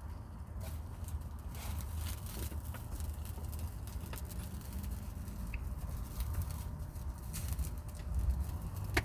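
Sausages sizzling over a wood campfire, with scattered sharp crackles and pops, over a steady low rumble.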